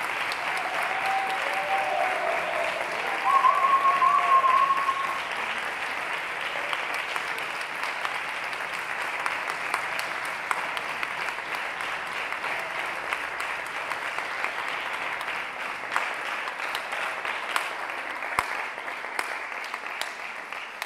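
Concert hall audience applauding steadily after a chamber orchestra performance, with a long high held call rising above the clapping about three seconds in. Later the clapping thins so that single claps stand out.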